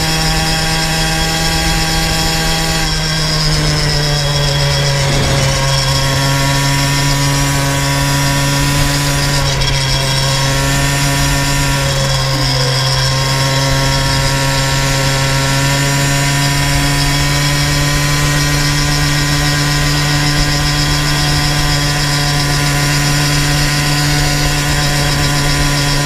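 Motorized bicycle's small single-cylinder engine running steadily under way. Its pitch eases down slightly about three seconds in, then holds steady at cruise.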